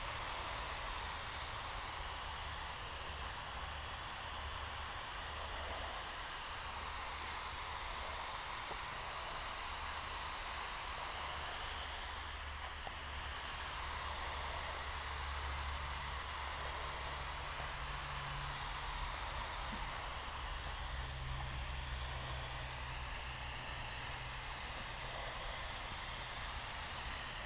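Paint spray gun spraying finish coat, a steady hiss of air and atomised paint with a low hum underneath.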